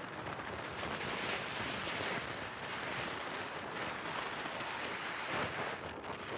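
Strong wind blowing across the microphone: a steady rush of noise with small gusty swells.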